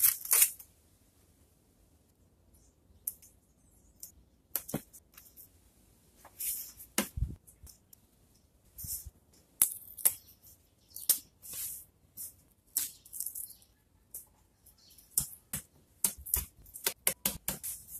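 Masking tape pulled off the roll and torn into strips again and again: about twenty short, high-pitched rips at irregular intervals, with a few clicks and a dull thump about seven seconds in.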